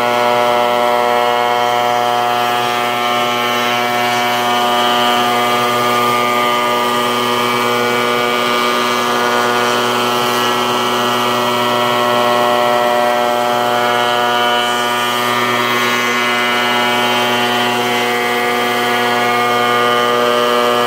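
Shop Fox molding machine running steadily as a curved molding blank is fed through its cutter, a loud, constant whine with a hiss of cutting over it.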